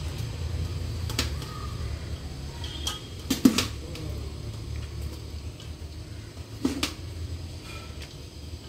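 Part-cooked rice being spooned from a steel bowl into a pot of biryani masala: a few light knocks and clinks of the spoon against the metal, the loudest about three and a half seconds in, over a steady low hum.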